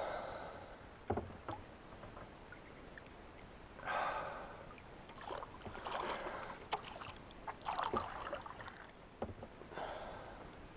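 Water splashing in several short bursts as a hooked Saratoga thrashes at the surface close to the kayak, with a few light knocks in between.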